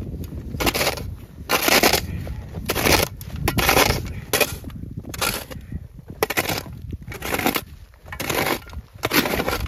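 Snow shovel digging into snow, a crunching scrape with each stroke, about a dozen strokes roughly a second apart, under a steady low wind rumble.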